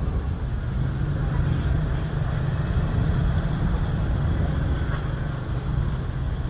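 Thunderstorm: a steady low rumble with an even hiss of rain above it.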